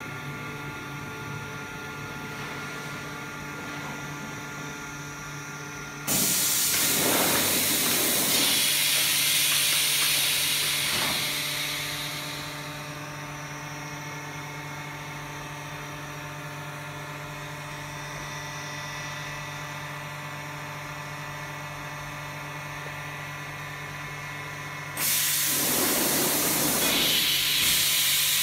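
Blister vacuum thermoforming machine running with a steady hum, broken twice by loud air hissing: one hiss starts suddenly about six seconds in and fades out over several seconds, and another starts suddenly near the end.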